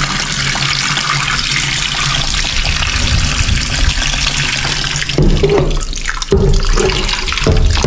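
Kitchen tap running water onto beef in a metal bowl and into a stainless steel sink, a steady rushing splash. The rinse water is poured off from the bowl into the sink, and from about five seconds in the bowl is refilled under the stream.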